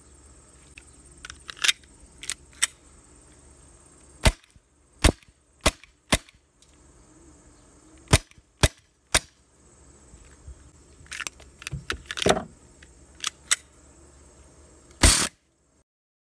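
Black Glock-style airsoft pistol being fired, more than a dozen sharp single shots at irregular intervals, some in quick pairs. The sound cuts off suddenly near the end.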